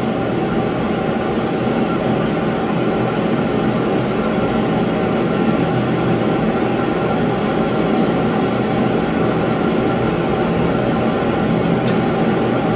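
Propane shop heater running steadily: an even rushing noise with faint steady hum tones throughout. One light click near the end.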